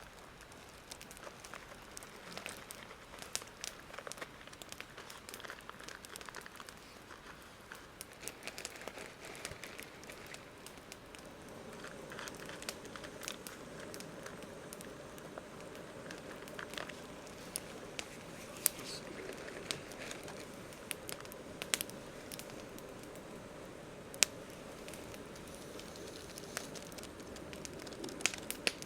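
Campfire crackling, with sharp pops and snaps scattered irregularly throughout; from about twelve seconds in, a steadier low rushing sound of the flames comes up beneath the pops.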